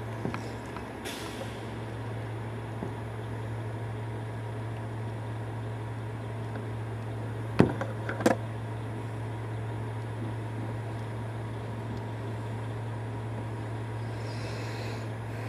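Mack/Leach rear-loader garbage truck idling with a steady low drone. A short hiss comes about a second in, and two loud bangs close together about halfway through.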